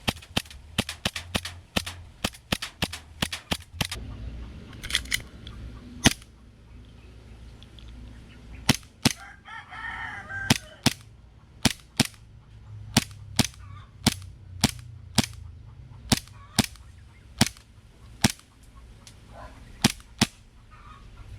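E&C Taran Tactical gas blowback airsoft pistol firing shot after shot with sharp cracks of the cycling slide. It fires a quick string in the first four seconds, then a few single shots, then a steady run of about two shots a second. It is cycling cleanly with no misfires now that it has been lubed with silicone.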